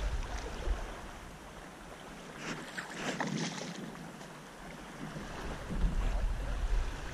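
Wind buffeting the microphone over small waves lapping on the lakeshore, with a few faint handling clicks about halfway through.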